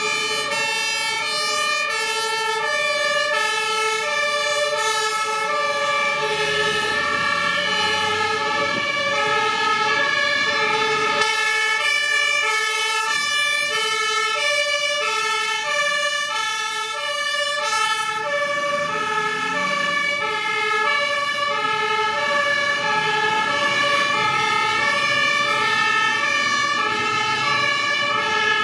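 German two-tone fire engine sirens (Martinshorn) alternating high-low throughout, with more than one siren overlapping as several fire engines pull out in turn. Truck diesel engines run underneath.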